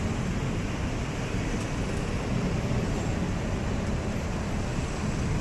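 Street traffic noise: a steady low rumble of passing vehicles, with no single event standing out.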